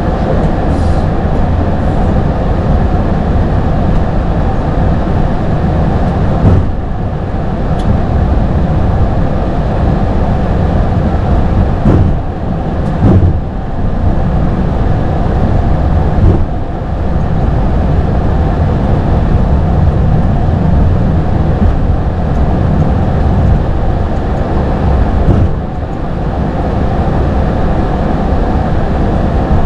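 Steady rumble of an Airbus A220-300 in motion, with airflow and engine noise and a faint steady tone. The loudness dips briefly a few times, about a quarter, two fifths, half and six sevenths of the way through.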